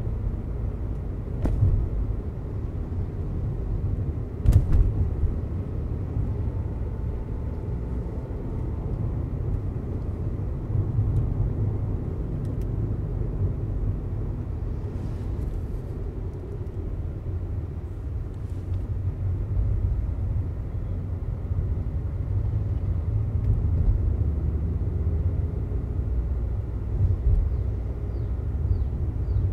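Volkswagen Vento TSI heard from inside the cabin while driving at city speed: a steady low rumble of engine and road noise. Two brief knocks come in the first five seconds.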